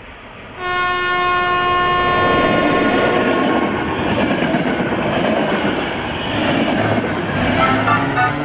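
Train horn sounding one long steady blast from about half a second in to about three seconds, followed by the rumble of a passing train. Music comes in near the end.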